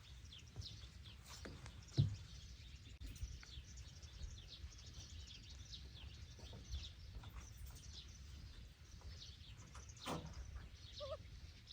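Many small birds chirping in the background, with a low steady rumble underneath. There is a single sharp thump about two seconds in.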